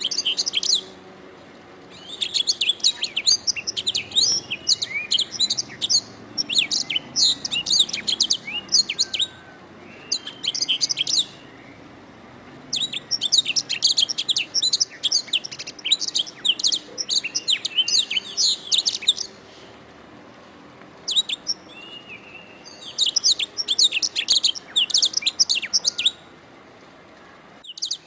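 Domestic canary singing long, rapid, high twittering phrases that last several seconds each, broken by pauses of a second or two.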